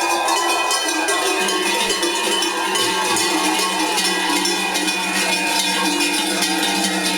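Many cowbells clanging together in a dense, continuous jangle, with a few steady low tones held underneath.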